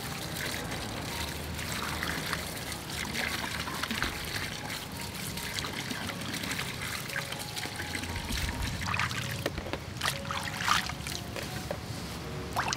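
A thin stream of water pouring into a metal basin of produce, splashing as hands rinse tomatoes, chillies and greens in it, with scattered small knocks from handling.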